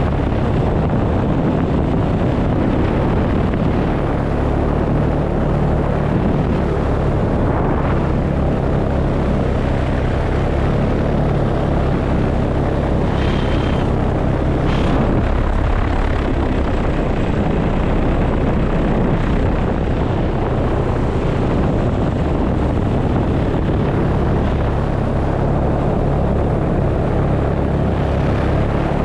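Paramotor engine and propeller running at a steady throttle in flight, a constant drone with no change in pitch.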